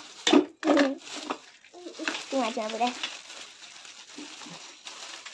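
Clear plastic bag crinkling and rustling as it is handled, with a few sharp knocks near the start.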